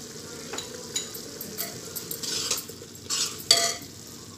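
Steel spoon stirring minced meat and ground spices in a pressure-cooker pot, scraping and clinking against the metal several times, with the loudest scrape near the end.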